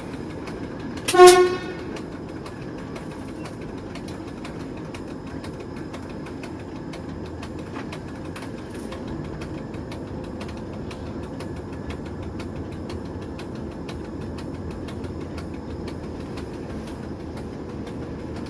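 A TEP70 diesel locomotive's horn gives one short, loud toot about a second in. After it the locomotive's diesel engine runs steadily.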